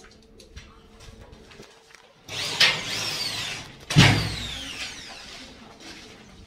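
Corded electric drill-driver running in two short bursts, its motor whine rising and then falling away as the trigger is released, with a sharp knock at the start of the second burst.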